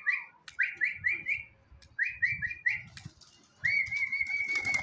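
A man whistling to call a pigeon in: three quick runs of short chirping whistle notes, then one long steady whistle. Near the end the pigeon's wings flap as it flies in to his hand.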